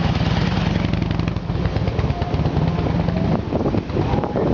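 Motorcycle engines running with a steady, fast-pulsing low rumble that eases off a little near the end.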